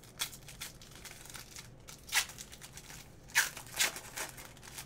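Shiny foil wrapper of a Diamond Kings baseball card pack being torn open by hand, in short crinkling rips. The loudest rip comes about three and a half seconds in, followed by two more.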